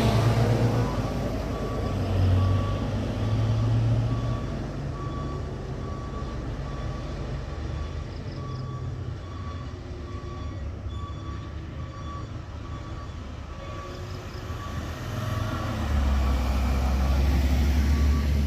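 A heavy diesel truck engine running on the climb, with a truck's reversing alarm beeping in an even rhythm over it. The engine drone swells louder near the end.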